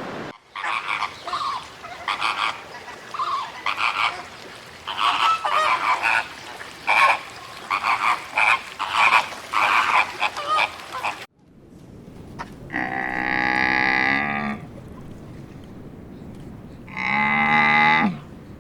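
A rapid run of short animal calls, many in quick succession. After an abrupt cut come two long, drawn-out calls, the second ending with a drop in pitch.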